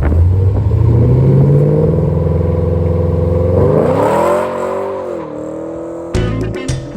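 Pontiac G8's engine running steadily, then revved once about halfway in, its pitch rising, holding and falling back. Music with a beat comes in near the end.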